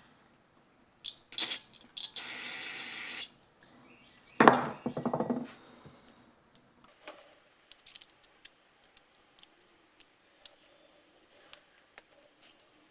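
Small metal carburetor parts and hand tools clicking and clattering on a workbench as a two-stroke carburetor is taken apart. About two seconds in there is a steady spray hiss lasting about a second. A louder metallic clatter follows a little later, then scattered light ticks.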